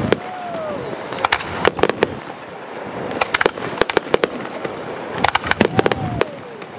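Fireworks display: many sharp bangs of shells bursting, coming in quick clusters, over a steady background of crackle and noise.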